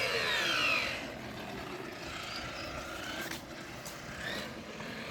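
Electric RC car motor whining, the pitch falling sharply in the first second as the car slows, then running on more quietly with small rises and falls in pitch.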